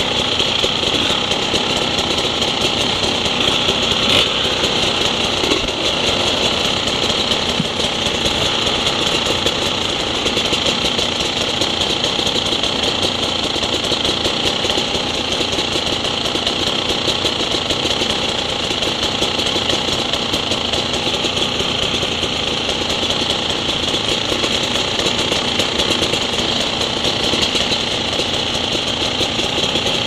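Enduro motorcycle engine idling steadily.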